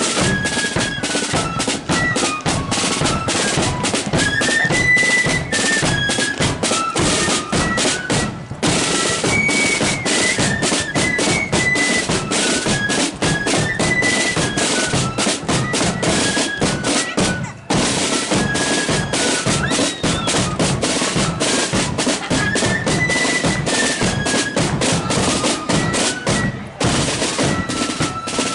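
Marching flute band playing a tune on flutes over rapid snare drum rolls and a bass drum beat.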